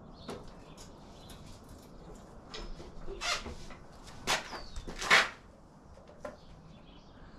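A few short metallic knocks and scrapes from hands working on a dune buggy's front axle and suspension, the loudest a little past the middle. Birds chirp faintly in the background.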